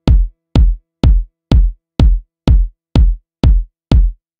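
Background electronic music: a drum-machine kick drum hitting steadily about twice a second, with little sound between the beats.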